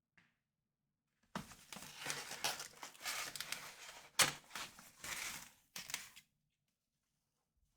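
Packaging crinkling and rustling as it is handled and opened, with a couple of sharp clicks; it starts about a second in and stops near the end.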